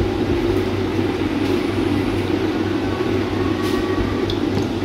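Cooking oil poured in a thin stream from a plastic bottle into a kadhai already holding oil, a steady liquid pour heard over a steady low rumble.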